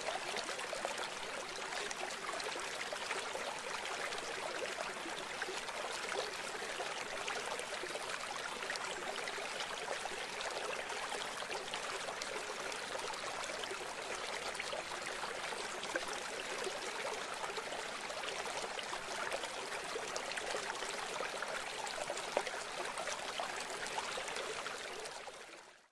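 Steady rushing of flowing stream water, fading out near the end.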